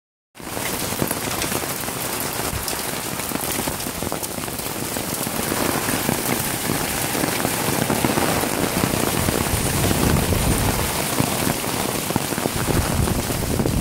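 Heavy rain pouring onto a waterlogged, muddy yard: a steady, dense hiss peppered with many close drop impacts.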